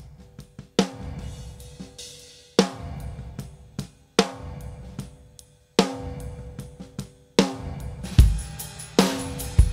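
Drum track played back from a mixing session: a snare hits about every second and a half, each hit followed by a long reverb tail fed by a kick-drum sample triggered from the snare, with lighter hits in between. Deep kick-drum thumps join near the end.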